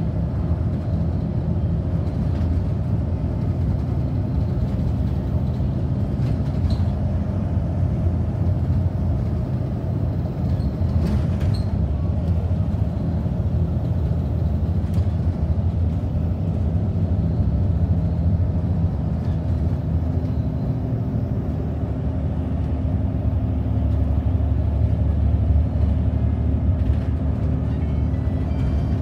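A bus in motion, heard from inside the cabin: the engine runs steadily under road noise, with a few light rattles. The engine note shifts about two-thirds of the way through.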